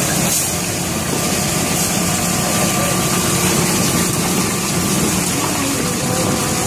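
Steady machinery drone of a fishing boat's engine and deck machinery, running evenly with no change in pitch or level.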